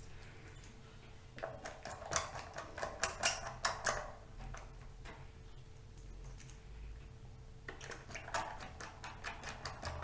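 Quick runs of small metallic clicks and ticks from a precision screwdriver driving tiny screws into an aluminium laptop hard-drive caddy, in two bursts: one starting about a second and a half in, another from about eight seconds in.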